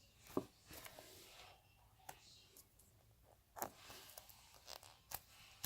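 Near silence with faint handling noise: a few soft taps and rustles as a foam squishy toy is handled close to the microphone.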